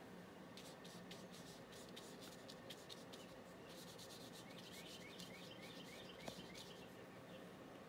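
Faint scratch and rub of a paintbrush's bristles on paper, in many short strokes as paint is brushed on.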